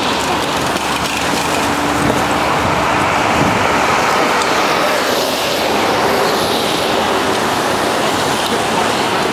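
Steady road noise: bicycle tyres hissing on wet tarmac as a stream of cyclists freewheels downhill past, over a background of traffic.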